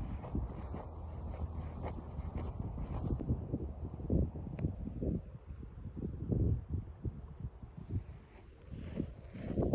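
Steady high-pitched insect chorus, with the irregular thuds of footsteps on a dirt trail underneath.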